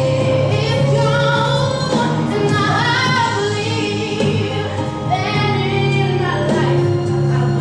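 A young woman singing solo into a handheld microphone, her amplified voice carried over steady instrumental accompaniment. She holds long notes, one at the start and another near the end.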